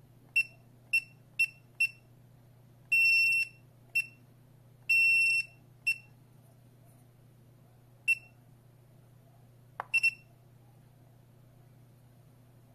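Wireless touch alarm keypad beeping as its keys are pressed: four quick high beeps about half a second apart, then two longer half-second beeps, each followed by a short one. Later come a single short beep and, near the end, a light tap followed by two quick beeps.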